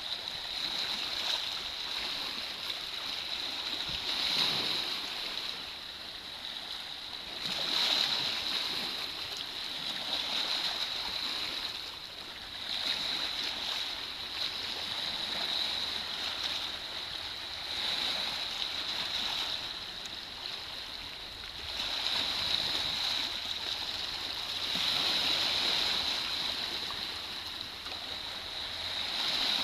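Small sea waves lapping at the beach, the wash swelling and fading about every two to three seconds, over a steady high hiss.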